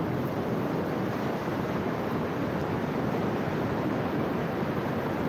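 Sea surf breaking and washing up on the beach, a steady, even rush of waves.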